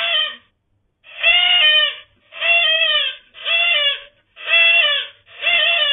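A young goat kid bleating in distress while a cat attacks it: about six loud calls in a row, roughly one a second, each under a second long.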